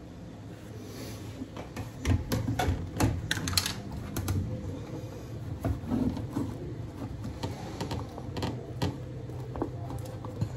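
Hands working wallpaper in behind the pipes under a pedestal sink: irregular light clicks and taps, thickest from about two seconds in to near the end.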